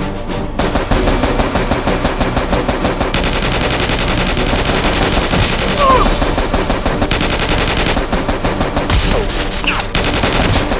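Rapid automatic gunfire in continuous overlapping bursts, the sound of a staged gunfight, with a couple of brief rising and falling cries or whistles partway through.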